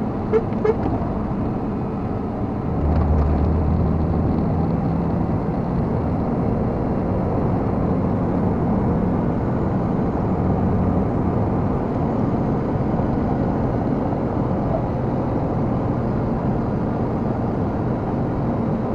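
Scania R470 truck's straight-six diesel engine pulling steadily uphill, heard inside the cab with tyre and road noise. The engine gets louder about three seconds in and then holds steady. Two short clicks sound just after the start.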